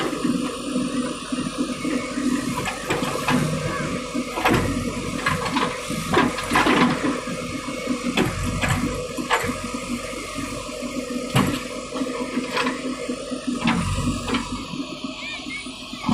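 JCB 3DX backhoe loader working: its diesel engine runs steadily under irregular clattering and scraping knocks, as of soil and stones being dug and moved.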